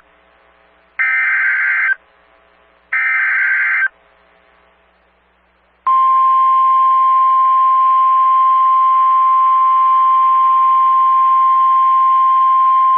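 Emergency Alert System header bursts: the last two of three one-second data bursts, a second apart. About two seconds later a steady single-tone weather-radio warning alarm starts and holds, marking the start of the next warning.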